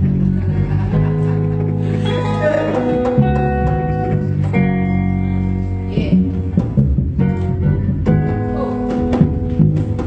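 Live band playing an instrumental passage: bass guitar holding a steady low line under guitar and percussion.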